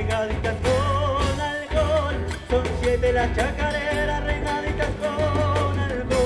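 Live band playing a song: a voice singing the melody over strummed guitars, a low bass line and a steady drum beat.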